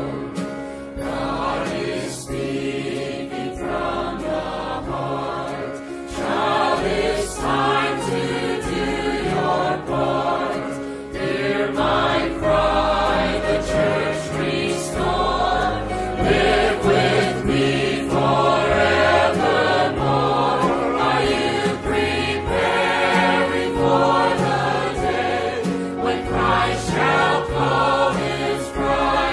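Church choir singing a gospel hymn in parts, with instrumental accompaniment carrying sustained low notes.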